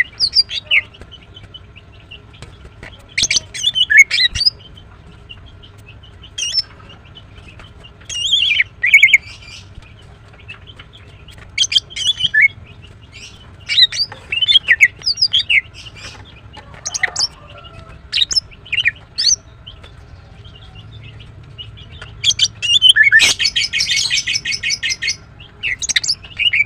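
Female greater green leafbird calling: clusters of short, sharp, high-pitched chirps every second or two, with a rapid chattering run of about two seconds near the end.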